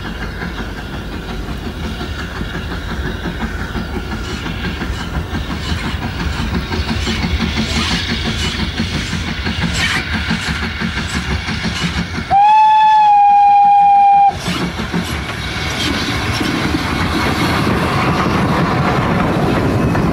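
Preserved Midland Railway Johnson 1F 0-6-0 tank engine running with its train, a steady rumble with rhythmic beats. About twelve seconds in, its steam whistle gives one loud blast of about two seconds on a single steady note, sliding up briefly as it starts.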